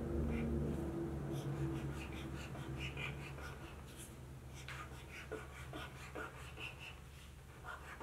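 Felt-tip marker drawing zigzag lines on paper: a run of short, scratchy back-and-forth strokes that grow sparser in the second half.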